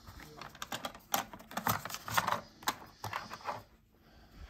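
Irregular plastic clicks and clacks of a cassette tape being handled and loaded into a cassette deck, dying down about three and a half seconds in.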